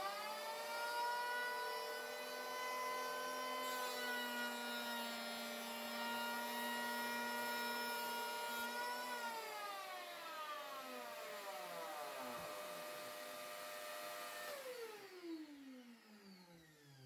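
Einhell handheld electric planer motor spinning up, running through a 1 mm planing pass over rough wood, then winding down about nine seconds in. A dust extractor hooked to the planer keeps running with a steady whine, then winds down near the end.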